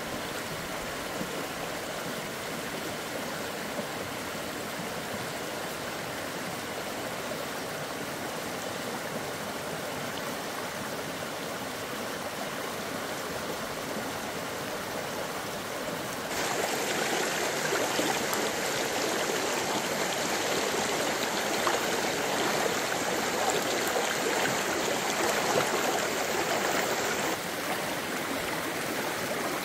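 Running stream water flowing steadily, a continuous rushing hiss. It gets louder about sixteen seconds in and drops back about twenty-seven seconds in.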